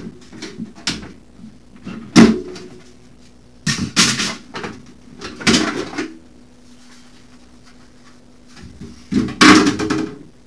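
Plastic motorcycle body panels knocking and clattering as they are pulled off the frame of a Honda CB500, in four separate bursts of handling with quiet in between.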